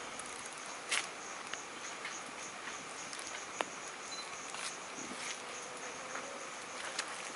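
Outdoor ambience with an insect chirping in a steady, evenly pulsing high trill, broken by a few scattered sharp clicks.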